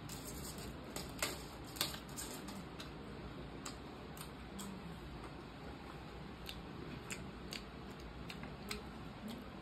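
Faint eating sounds: a scattering of small sharp clicks at irregular intervals over a low steady hum.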